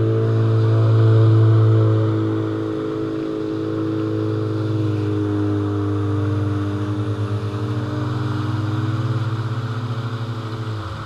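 Jet ski engine running past and away, a steady drone loudest about a second in whose pitch sinks slowly and begins to waver in the second half.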